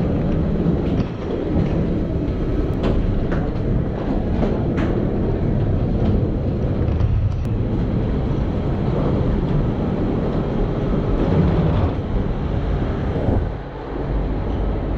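Continuous low rumble of wheeled suitcases rolling and people walking along an airport jet bridge floor, with scattered clicks and knocks; it dips briefly near the end.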